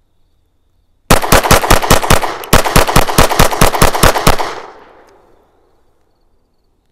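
FN 509 CC Edge 9mm pistol with built-in compensator fired rapidly: a magazine of about fifteen shots in quick succession, about seven a second, broken by a short pause after the first eight. The last report rings out and fades over about a second.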